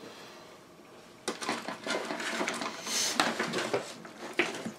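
Small hard parts being handled on a workbench: a circuit board and its cable shifted and set down, making a run of light clicks, taps and rustling that starts about a second in.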